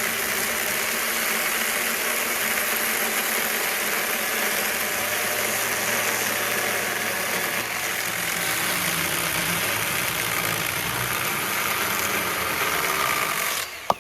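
Milwaukee M12 Hatchet 6-inch battery pruning saw running steadily as its chain cuts through a cherry log across its full width. The saw stops abruptly near the end, with a click.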